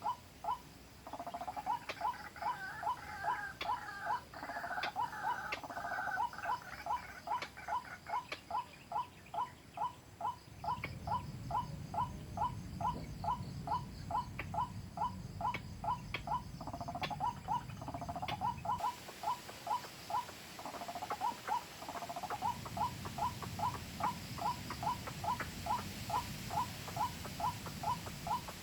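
White-breasted waterhen call played from a phone as a lure: one short note repeated evenly, about two to three times a second. For the first few seconds a second, higher run of calls sounds over it, and a low rumble joins from about ten seconds in.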